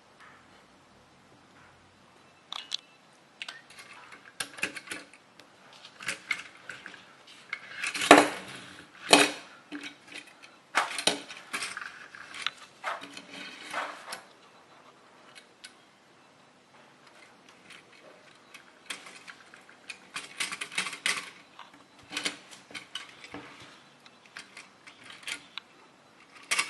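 Toy cars being handled: irregular clicks and clatters of small hard toy parts knocking and rattling together, in short runs with pauses, the loudest knocks about a third of the way in.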